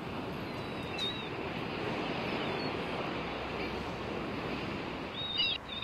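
Steady outdoor rushing ambience with a few short bird chirps, one about a second in and a quick cluster near the end.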